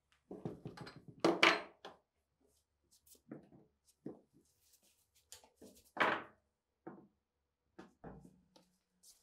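Bench vise being loosened and a rusty PTRD anti-tank rifle barrel handled. There is a rattle and clunk from the vise, then a string of separate metal knocks and clunks as the barrel is taken out and laid on the workbench. The loudest knock comes about six seconds in.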